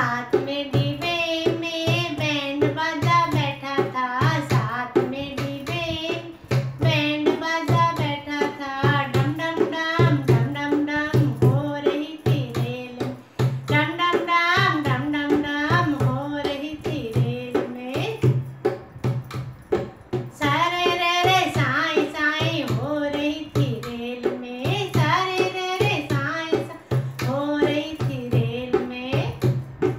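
A woman singing a Hindi folk wedding song (banna-banni vivah geet), accompanying herself on a dholak that keeps a steady, quick beat under the melody.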